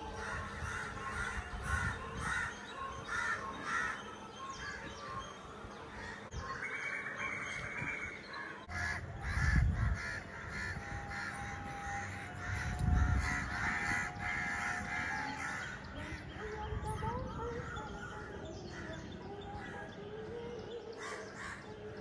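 Crows cawing again and again, with a few bursts of low rumble.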